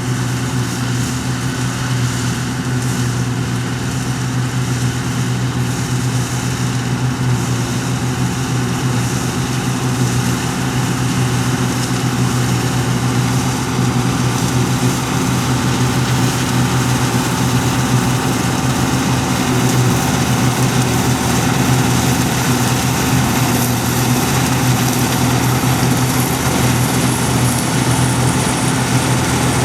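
Heavy farm machinery's diesel engine running steadily under work, a deep even hum with hiss above it.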